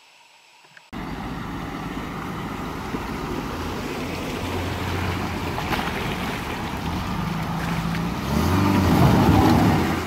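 Suzuki Vitara 4x4 wading through a shallow river ford, its engine running under the rush and splash of water around the wheels. From about eight seconds in the engine runs louder as the front wheel climbs out of the water onto the concrete ramp. The first second is near silence.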